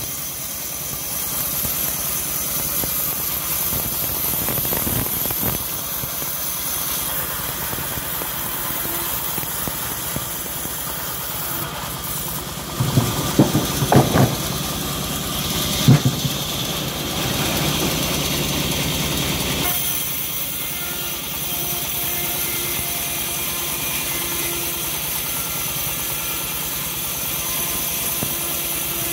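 Home-built bandsaw mill running steadily while sawing hard jowar (johar) timber as a slab is pushed through the blade. A few sharp knocks come about halfway through, and the running noise changes character about two-thirds of the way in.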